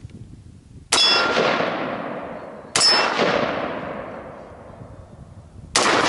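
Three shots from an AR-style carbine, about a second in, near the three-second mark and just before the end. Each is a sharp crack followed by a long fading ring, with a metallic ring as a steel head-sized target is hit.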